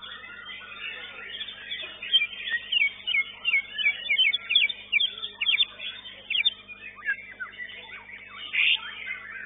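White-rumped shama (murai batu) song in a contest: a fast run of sharp, rising and falling whistled notes, thickest from about two to six and a half seconds in, with one loud note near the end, over the chirping of other birds.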